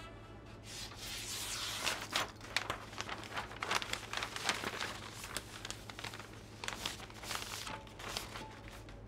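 A large sheet of wrapping paper being pulled off a roll and handled, crinkling and rustling with many sharp crackles.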